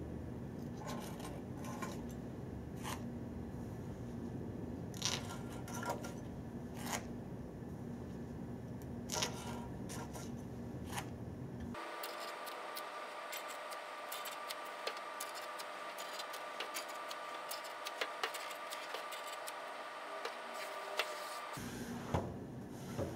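Hands working pool table cloth: scattered small clicks, scrapes and rustles as the excess cloth is trimmed at the pockets and the cut scraps are gathered up, over a steady background hum.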